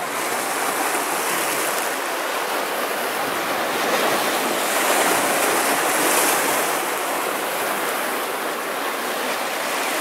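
Sea waves washing and splashing against a rocky shoreline: a steady rush of surf that swells a little about halfway through.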